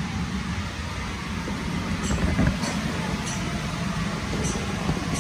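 Electric blower fan keeping an inflatable obstacle course inflated, a steady low rumble of air, with a soft bump about halfway through and faint high ticks about every half second from two seconds in.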